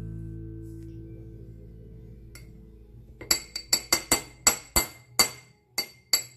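A metal spoon clinking against the rim of a small glass ramekin about ten times in quick succession, knocking minced garlic off into the oil. Each tap is a sharp, ringing glass clink.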